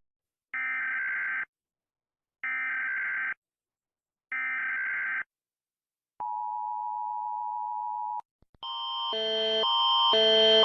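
Emergency Alert System alarm: three identical buzzy digital header bursts about a second apart, then a steady attention tone for about two seconds. A pulsing, multi-tone alarm starts near the end and grows louder.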